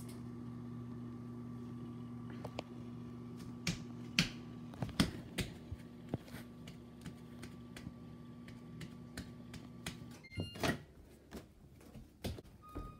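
Over-the-range microwave oven running with a steady low hum, with scattered clicks and taps over it. About ten seconds in the hum stops, a few short beeps sound, and the door clicks open.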